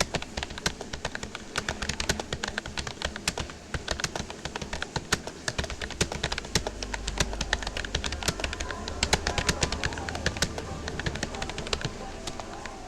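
Fast touch typing on a Rapoo computer keyboard: a rapid, uneven stream of key clicks at speed-test pace, thinning out near the end as the typing stops.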